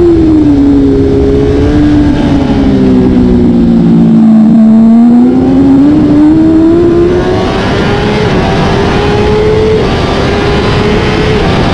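Kawasaki ZX-10R inline-four racing engine heard from onboard: its pitch falls as the bike slows in second gear for a corner, bottoming out about four seconds in, then climbs steadily under hard acceleration up through the gears. Heavy wind rush over the microphone rises with speed in the second half.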